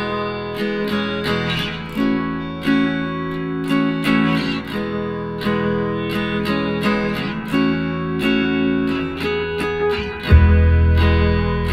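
Background music led by plucked guitar notes, picked out one after another. A deep, loud bass comes in near the end.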